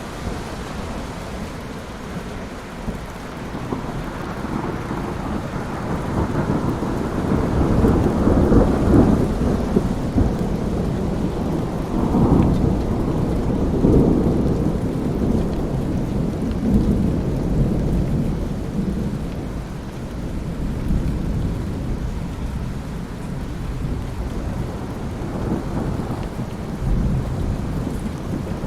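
Thunderstorm: steady rain with rolling thunder rumbling low underneath, swelling loudest from about a quarter to halfway through and easing off toward the end.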